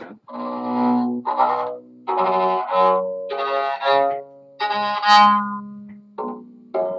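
3D-printed electric cello bowed through its pickup and active preamp, played out of a small Fender guitar amplifier with the preamp volume at about 75%: a string of short bowed notes, one after another, with brief gaps between them.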